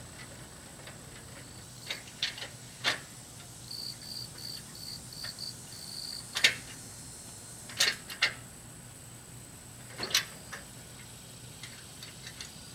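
Scattered sharp knocks and clanks, about seven of them, from someone handling a boat trailer, over insects: a steady high drone and, for a couple of seconds in the middle, a short chirp repeated about three times a second.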